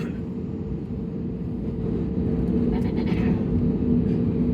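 Airbus A320neo jet engines heard from inside the cabin: a steady hum with a low, even drone that grows louder from about halfway through as the engines spool up for the takeoff roll.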